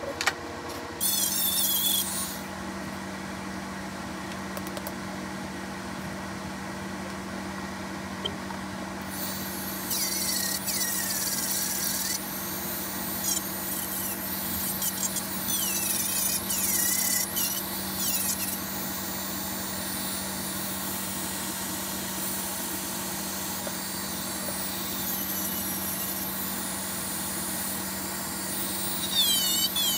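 Corded handheld rotary tool running at a steady pitch from about a second in, with repeated high scraping squeals as its bit grinds against the leather of a shoe.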